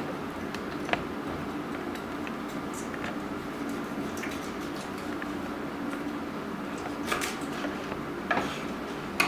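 Faint squishing and a few short clicks of a raw whole chicken being cut up for butterflying, over a steady low hum. The clicks come about a second in and again in a small cluster near the end.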